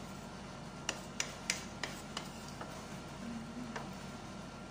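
A cooking spoon stirring a thick okra and shrimp stew in a metal pot, knocking lightly against the side of the pot about half a dozen times at uneven intervals.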